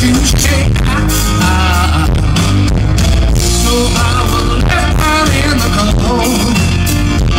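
Live rock band playing a song loudly, with a drum kit, electric guitars and keyboard.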